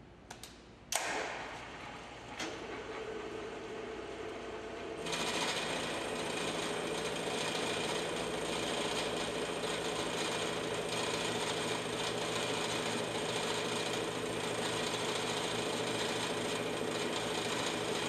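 Vertical milling machine's carbide-insert face mill taking a light cut across a medium-carbon steel block: a click about a second in and a rising run-up, then from about five seconds in a steady whirring hiss with a constant hum as the cutter works through the steel.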